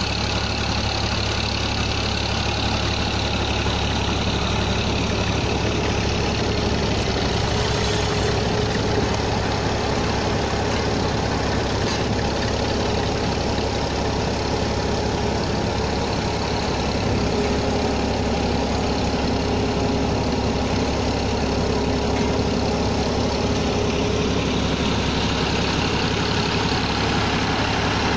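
Diesel tractor engines running steadily, one pushing wet clay with a front blade and one turning a long drive shaft from its wheel hub to power a clay mixer.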